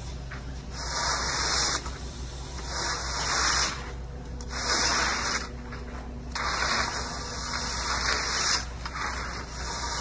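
A long hand screed bar scraping across wet concrete in repeated strokes, about one every second or two, each a rough hissing scrape. A steady low hum runs underneath.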